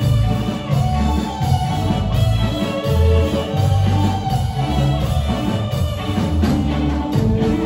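Live band music with a prominent bass line stepping between notes about twice a second under pitched instruments.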